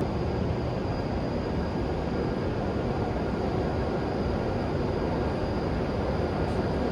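Steady low rumble of a shinkansen station platform, with a faint high-pitched whine held throughout.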